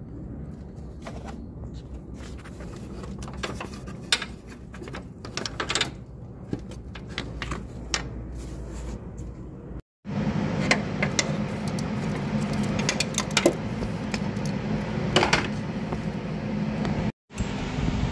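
Hand ratchet and socket working on the A/C compressor's mounting bolts: scattered metallic clicks and taps of the tool on the bolt, over a steady background hum that gets louder after about ten seconds.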